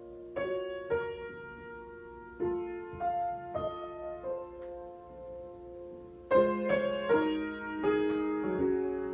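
Solo piano improvisation at a slow pace: chords and single notes are struck and left to ring. A fuller, louder chord comes about six seconds in.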